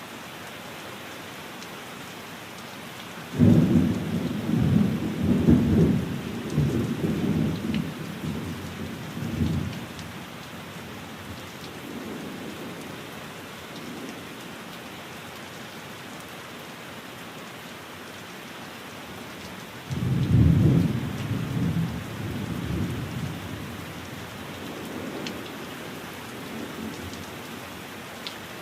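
Steady rain with two rolls of low, rumbling thunder. The first breaks about three seconds in and rumbles on for several seconds; the second comes about twenty seconds in and is shorter.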